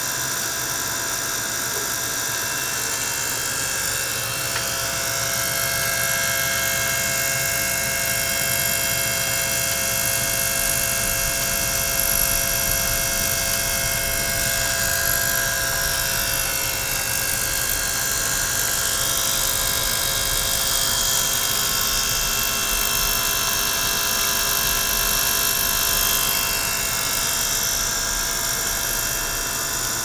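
Small liquid-circulation pump running steadily, pushing water and air bubbles through a tank holding an ultrasonic transducer. It gives a steady motor hum with several high steady tones, and faint high whines that slowly rise and fall.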